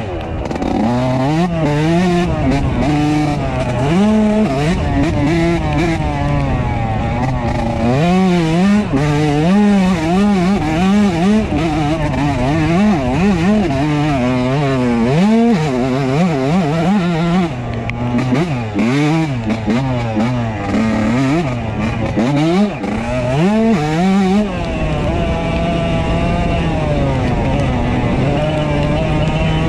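2003 Yamaha YZ125's two-stroke single-cylinder engine ridden hard on a dirt motocross track, its revs rising and falling sharply every second or so through gear changes and throttle blips. About twenty-five seconds in it settles to a steadier, lower note.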